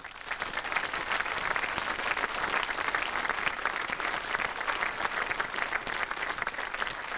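Audience applauding, swelling in the first second and then holding steady and dense.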